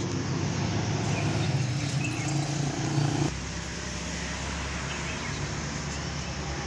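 Steady low hum of a road vehicle's engine. About three seconds in it gives way to a lower, duller rumble.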